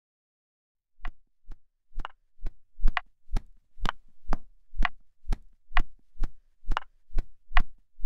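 Slow, even footsteps of an old man walking with a cane on a paved road: short, sharp taps about two a second, starting about a second in.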